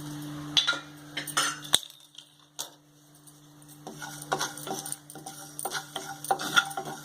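A spoon clicking and scraping against a dry pan as whole spices are stirred while dry-roasting, in irregular strokes with a short lull in the middle. A steady low hum runs underneath.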